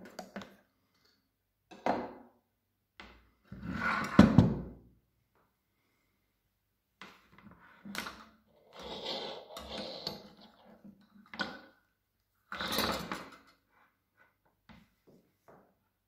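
Parts of a SilverCrest hand blender being handled: a string of separate plastic knocks, clicks and rustles as the motor unit, cord and attachments are moved about on the counter, the loudest about four seconds in. The blender motor does not run.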